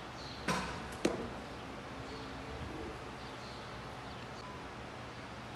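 Two sharp impacts about half a second apart: a baseball being blocked by a catcher kneeling in full gear.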